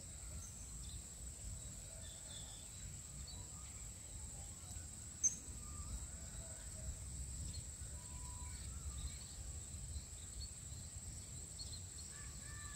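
Faint outdoor ambience: a steady, high-pitched insect drone of crickets or cicadas over a low rumble, with a few faint chirps and a single short click about five seconds in.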